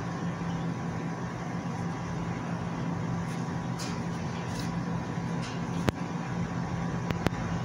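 Steady machine hum in a kitchen, with a few faint rustles and three sharp clicks near the end.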